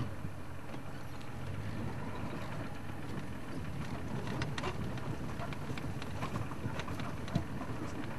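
Game-drive vehicle's engine running steadily at low revs as it moves off slowly, with scattered clicks and knocks from the vehicle crossing rough ground.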